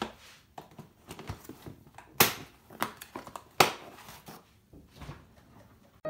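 Kitchen items being handled on a countertop: scattered knocks and rustling, with two sharp clacks about two and three and a half seconds in. Music starts right at the end.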